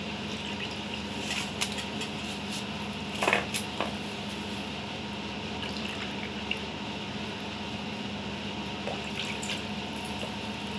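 Milk being poured from a can into a plastic measuring cup and from the cup into a mixing bowl, with a few light knocks of the can and cup, the loudest about three seconds in, over a steady background hum.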